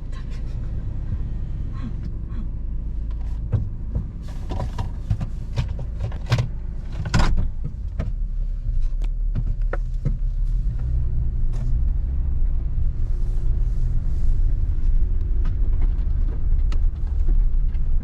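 Motor vehicle running with a steady low rumble, with scattered knocks and rattles.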